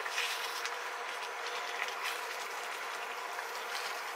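Chicken korma sauce with chicken stock in a frying pan sizzling and bubbling as it comes back to the boil, a steady hiss with a few faint scrapes and taps from a wooden spatula stirring through it.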